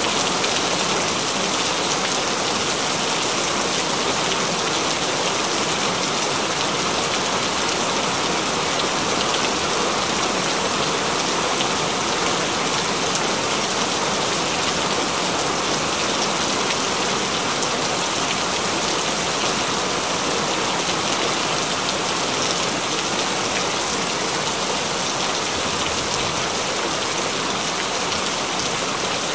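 Steady rain falling and pattering on hard surfaces: an even, unbroken hiss flecked with the fine ticks of individual drops.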